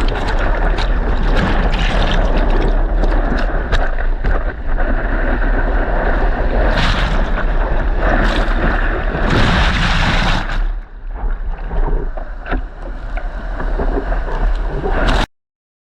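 Choppy lake surf and whitewash splashing and churning, with heavy wind rumbling on the microphone. The sound thins out about eleven seconds in, then cuts off suddenly near the end.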